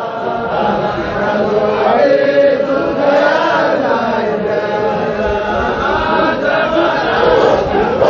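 A group of men chanting a Qadiriya Sufi dhikr together, their voices overlapping in one continuous chant.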